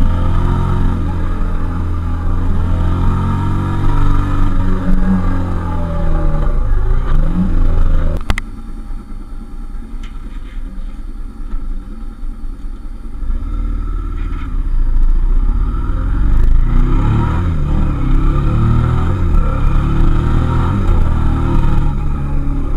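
Suzuki SV650S's 650 cc V-twin engine running under way on the road, its pitch rising and falling. About eight seconds in there is a sharp click and the engine goes quieter; it picks up and grows louder again from about thirteen seconds.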